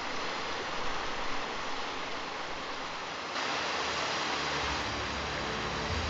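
Steady rushing wind noise on the microphone, turning louder and harsher about three seconds in. Music fades in under it near the end.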